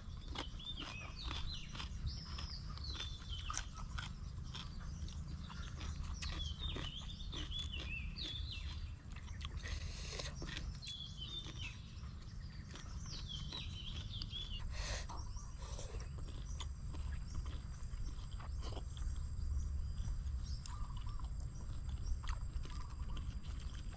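Close-up chewing and crunching of food, with birds chirping in short bursts through the first half and a steady low rumble underneath.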